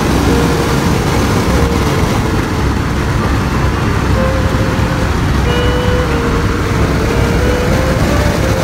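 A B-17 bomber's four nine-cylinder Wright Cyclone radial engines at takeoff power, a loud steady roar with a deep rumble, heard from inside the fuselage during the takeoff run.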